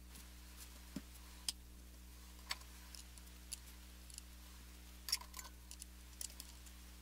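Scattered light clicks and small metallic taps of guitar hardware being handled, as a flat wrench works the nuts off the pots and switch of a Telecaster pickguard, over a low steady hum. The clicks come about once a second, with a small cluster about five seconds in.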